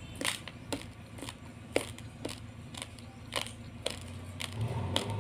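Raw basmati rice grains being chewed: a run of sharp, dry crunches, about two a second.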